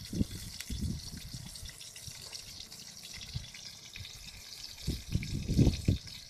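Tilapia frying in hot oil in a wok: a steady sizzle, with a few dull low bumps about five seconds in.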